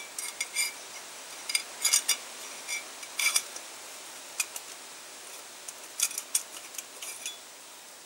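Irregular light metallic clicks and clinks, some with a brief ring, as a stuck piston ring is worked out of its groove on a Panhard Dyna Z1 piston by hand.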